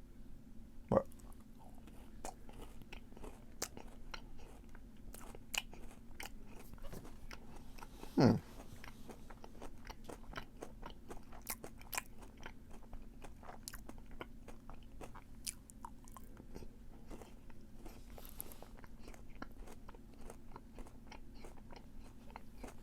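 Close-up chewing of a Fruity Pebbles white chocolate candy bar with cereal pieces: many small, irregular crunches and crackles, with two louder moments about a second in and about eight seconds in.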